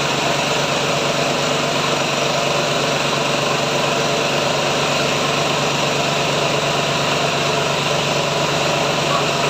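Mahkota KD550HM mini rice mill running steadily, a loud, even mechanical hum with steady tones over a hiss.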